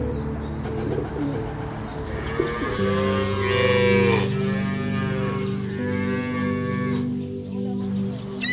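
Highland cattle mooing twice, each a long drawn-out call, about two and a half and five and a half seconds in, over steady background music.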